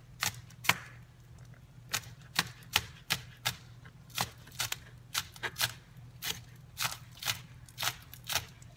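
Knife chopping green onions on a plastic cutting board: sharp taps of the blade against the board, about two a second in an uneven rhythm.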